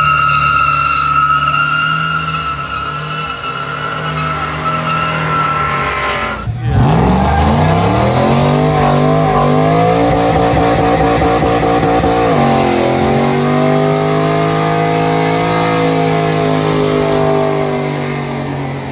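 A car's engine held at high revs in a burnout, with tires squealing. About six seconds in, after a break, a Nissan pickup truck's engine revs up and holds high as its rear tires spin in a long burnout, dropping briefly past the midpoint and revving back up.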